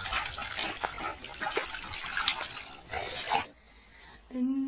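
A dog rolling and wriggling on its back in wet mud, making squelching, splashing and rubbing sounds that stop suddenly about three and a half seconds in. A short sound from a voice, rising in pitch, comes near the end.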